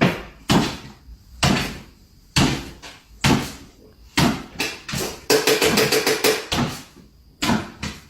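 A series of sharp knocks or bangs, roughly one a second, with a quicker flurry of them about five seconds in.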